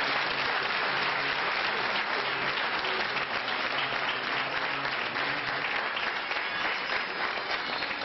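Audience applause, many hands clapping steadily and easing slightly toward the end.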